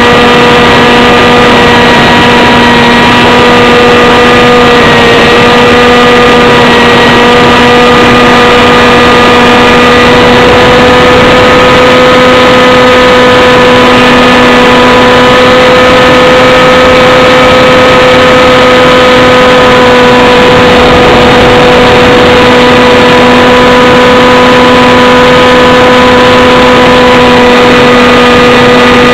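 The motor and propeller of a small aircraft run steadily at an almost constant pitch, recorded very loud by a camera mounted on the airframe.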